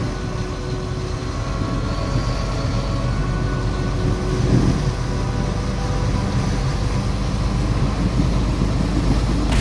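Semi truck cruising on a highway, heard from inside the cab: a steady engine drone with tyre and road noise.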